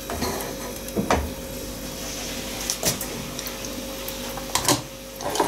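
Cookware being handled: a metal cooking pot and utensils knocking and scraping about five times, over a steady hum.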